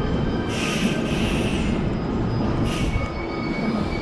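Electric trains at a station platform: a steady low rumble, with two short high-pitched bursts of screeching noise from the trains, the first lasting about a second from about half a second in and a shorter one near the end.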